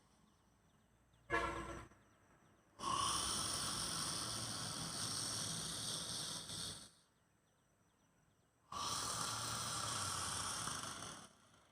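A man taking two long, forceful, hissing breaths through the mouth as a deliberate yawning exercise, each about four seconds long with a silent pause between. A short voiced sound comes about a second before the first breath.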